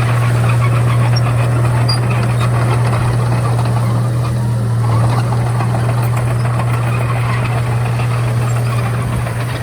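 Komatsu D31A bulldozer's diesel engine running steadily, a constant low drone with a dense rattle over it.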